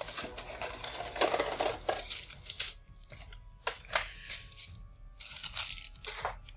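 A cardboard miniatures box being opened and its contents handled: rustling and scraping of card, sharp clicks of plastic sprues knocking together, then crinkling of a clear plastic bag of round plastic bases near the end.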